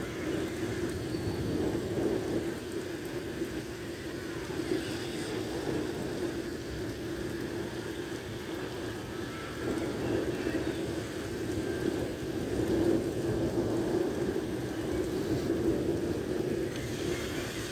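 Heavy rain falling steadily on a wet street and pavement, a continuous even hiss of a thunderstorm downpour.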